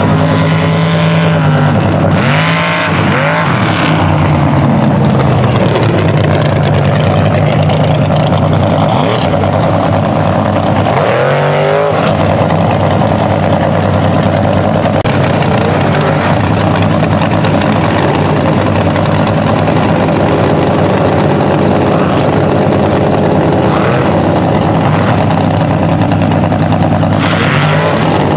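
Mega mud truck's engine running loud and steady, revved up and back down three times: near the start, about midway, and near the end.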